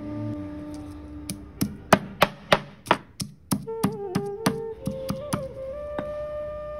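Stone pestle pounding whole spices in a stone mortar. About five sharp knocks come roughly three a second, starting about a second and a half in, followed by lighter knocks until about five and a half seconds in.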